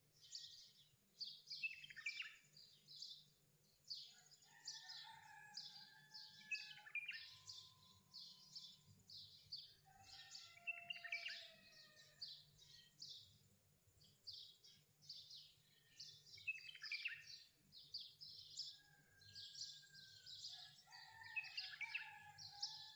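Songbirds chirping and singing quietly: a dense, continuous run of rapid high chirps, with a few lower whistled notes and quick downward-sweeping calls mixed in.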